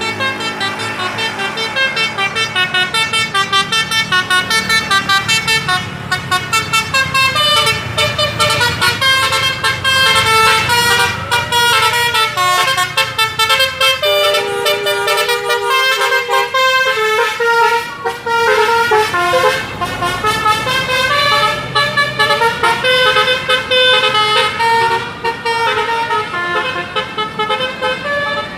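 Telolet basuri multi-tone bus horn on the D'Faza Auto bus playing a fast melody of short, repeated notes, over the bus engine's low hum.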